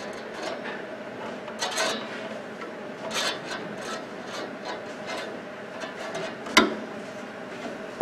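A flathead screwdriver and fingers scraping and rubbing on a microwave's plastic door latch while its spring is hooked back on, with scattered light clicks. One sharp click late on, as the latch spring catches on its hook.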